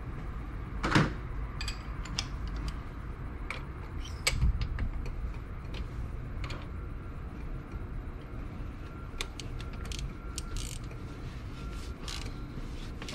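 A ratchet with a long socket extension at work on the spark plugs: scattered metal clicks and knocks, the loudest about a second in and again past four seconds, with a faint evenly repeating tick through the second half.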